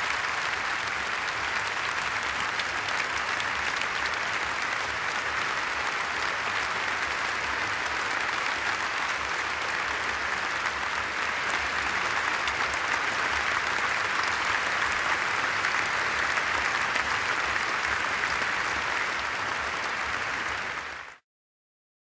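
A large audience applauding steadily at the close of a speech, as an ovation. The clapping stops abruptly near the end.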